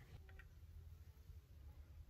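Near silence: room tone with a low steady hum, and two or three faint small ticks about a third of a second in.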